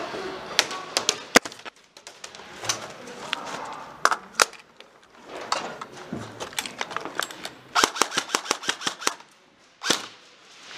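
Airsoft guns firing in an indoor arena: scattered single shots, then a fast string of about a dozen shots about three-quarters of the way through, and one more loud shot near the end.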